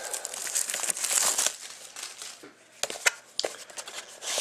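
Clear plastic shrink-wrap crinkling as it is pulled off a trading-card box. It is loudest for the first second or so, then comes a quieter stretch with a few sharp clicks about three seconds in, and it picks up again near the end.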